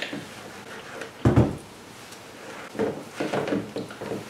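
A coconut coir sheet soaked in rice paste being handled in a plastic bowl: a knock about a second in, then several short rustling, squishing noises near the end.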